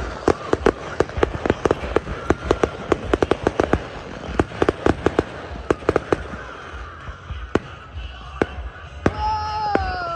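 Fireworks exploding in a rapid barrage of sharp crackling bangs, thinning to a few single bangs after about six seconds. Near the end a drawn-out tone slides downward.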